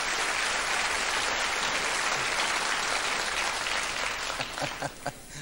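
Studio audience applauding, the applause dying away near the end into a few scattered claps.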